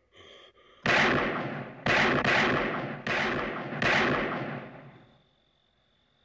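Five loud handgun shots in quick succession over about three seconds, each ringing out in a long echoing tail before the next.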